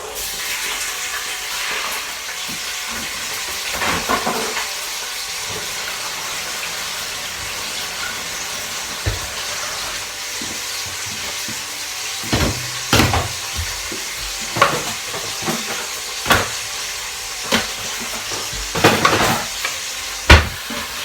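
Chicken breast pieces and chorizo sizzling steadily in olive oil in an Instant Pot, with several sharp knocks of a utensil against the pot in the second half as the meat is stirred.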